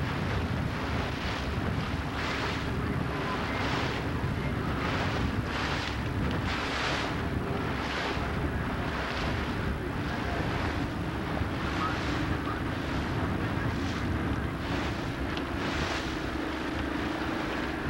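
Outboard or inboard motorboat engine running with a steady drone while the boat moves through chop, with surges of rushing water and wind noise about once a second.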